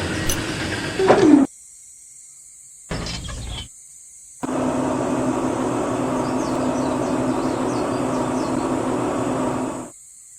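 A small motor running with a steady hum, heard in separate stretches that cut off and start again abruptly. About a second in there is a short loud sweep in pitch.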